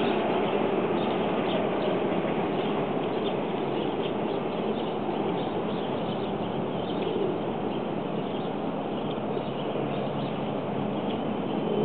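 Small birds chirping in many short, faint notes over a steady rushing background noise.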